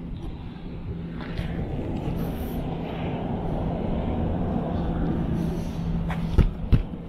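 A steady low mechanical hum, like a motor running, under a rushing noise. Two sharp thumps come close together about six and a half seconds in.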